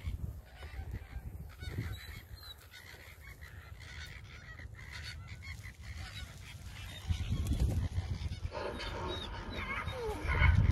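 A flock of greater flamingos calling, with many short calls overlapping, growing louder and denser near the end, over a low rumble of wind on the microphone.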